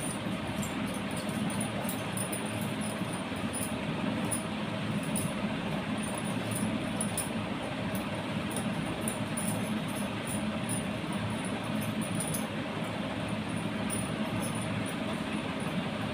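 Ceiling fan running, a steady whir with a low hum, with faint scattered clinks of bangles on the wrists.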